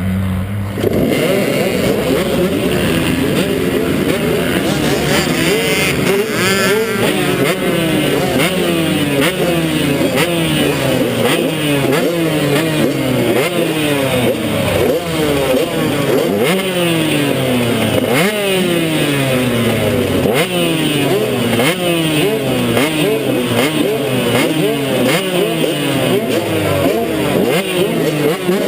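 KTM 150XC two-stroke dirt bike engine under hard throttle, its pitch climbing and dropping over and over as the rider accelerates, shifts and backs off.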